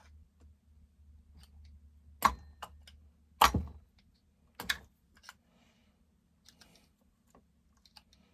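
Clicks and knocks of tools and parts being handled during a chainsaw teardown. Three sharper knocks come a little over two, three and a half, and nearly five seconds in, among scattered lighter ticks.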